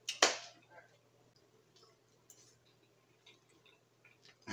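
A short, sharp noise right at the start, then faint, scattered clicks of a metal fork on a plate of food.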